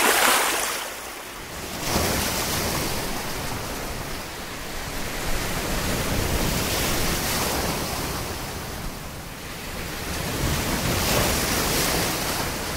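Sea waves washing into the shallows, a rushing surf that swells and eases every few seconds, with some wind.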